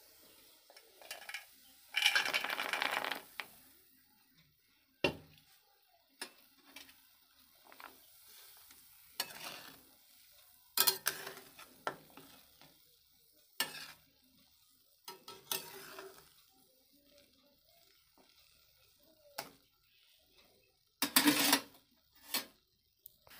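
Soya chunks frying in hot oil in an aluminium kadai and stirred with a metal spatula. A loud rush of sizzling comes about two seconds in, then scattered short scrapes and clinks of the spatula against the pan, and another loud scraping burst near the end.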